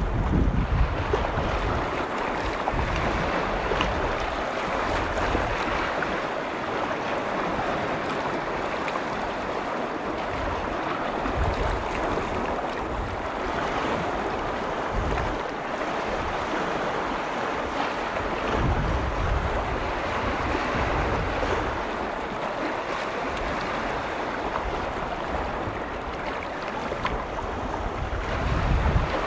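Waves on a large freshwater lake washing steadily, with low wind rumble on the microphone that gusts up a few times.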